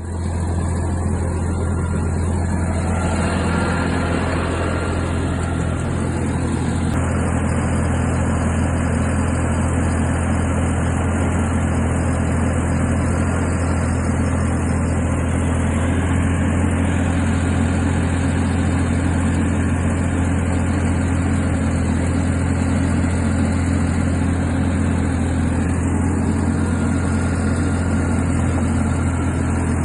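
Vögele Super 800 asphalt paver's diesel engine running steadily at a constant speed, with a steady high-pitched hiss above the low hum.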